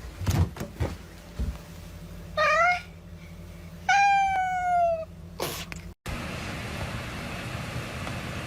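Domestic cat meowing twice: a short meow, then a longer one that falls in pitch. A few knocks come just before.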